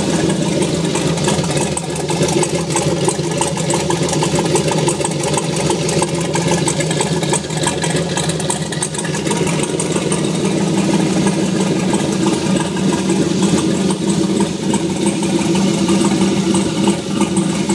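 Turbocharged 5.3-litre LS V8, built with 6.0 heads and a Howard's turbo camshaft, idling steadily with no load on it.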